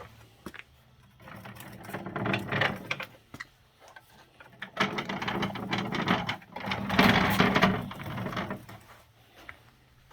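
A rapid mechanical clatter from assembly work on a workbench, in three bursts of one to two seconds each, over a low steady hum.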